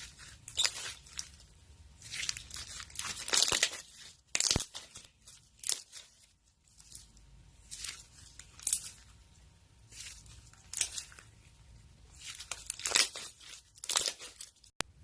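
Slime being squeezed, stretched and pressed by hand, crackling and crunching in irregular bursts, with a sharp pop about four and a half seconds in.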